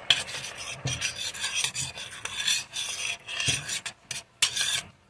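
A utensil stirring melted butter in a stainless steel saucepan, scraping the pan in quick rasping strokes about three a second, with a brief pause near the end.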